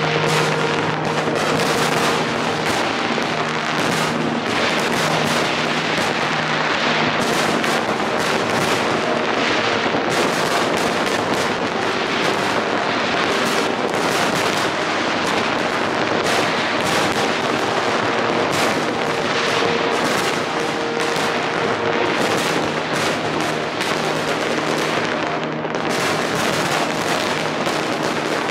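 Large fireworks display: a continuous barrage of bangs and crackles from many shells bursting at once. Steady low tones sound underneath for the first several seconds and again about two-thirds of the way through.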